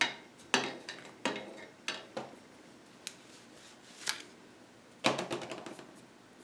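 Painting tools being handled: about eight light clinks and taps, each with a short ring, at uneven intervals, the last about five seconds in.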